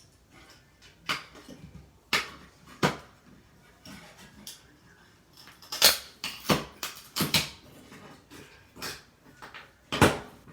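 Irregular sharp cracks, snaps and clicks of a smoke alarm's circuit board and plastic and metal parts being broken and pried apart by hand, about ten strong ones with softer handling noise between.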